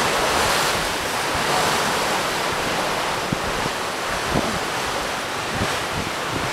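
Ocean surf washing against the rocks, a steady rushing roar that is a little louder at the start and eases slightly, with wind buffeting the microphone now and then.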